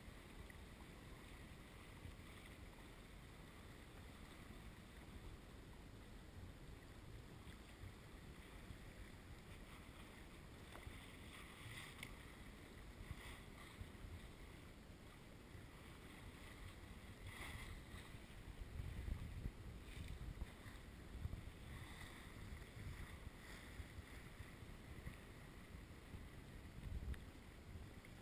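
Faint wind buffeting the microphone and water rushing past the hull of a sailboat under way, with a few brief louder swishes. The wind rumble picks up in gusts past the middle.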